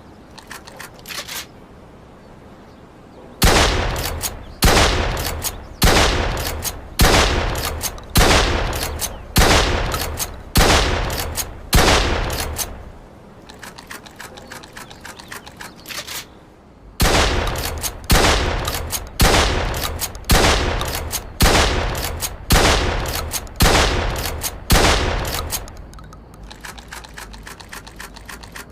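Remington 870 Field Gun pump-action shotgun firing in two strings of about eight shots each, roughly one shot a second, each shot with a ringing tail, with a pause of a few seconds between the strings. A few faint clicks come before the first string and after the second.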